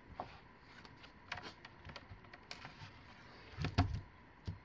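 Faint rustles and light taps of the pages of a hardcover picture book being turned, then a soft thump a little before four seconds in as the book is closed and laid down on a wooden surface.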